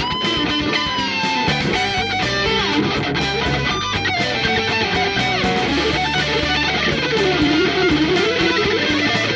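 Electric guitar played through a Noah'sark Effects Standard Series pedal, a lead line with slides and a wide, wavering vibrato in the second half, over a backing of lower sustained notes and a beat.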